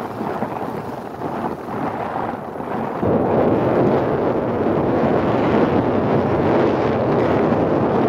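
Wind buffeting the microphone of a moving camera: a steady rushing noise that grows abruptly louder about three seconds in.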